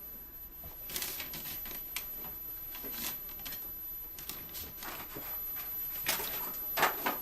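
Someone rummaging through things in a room: scattered clicks, knocks and rustles as objects are picked up and moved, with a sharper pair of knocks near the end.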